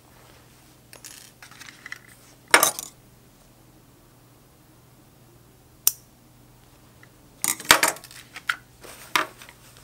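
Small scissors snipping sewing thread: a few sharp metallic snips and clicks with some handling rustle. The loudest comes about two and a half seconds in, a single click near six seconds, and a quick cluster around eight seconds.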